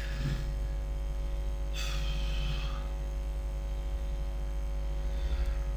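Steady low electrical mains hum picked up by the recording microphone. About two seconds in, a brief higher sound lasts roughly a second.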